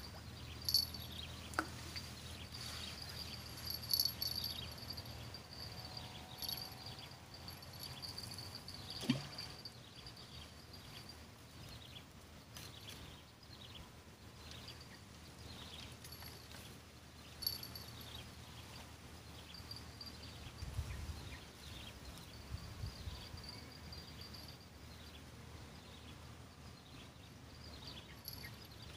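Insects chirping in a faint high-pitched trill that swells and fades, with a few brief clicks.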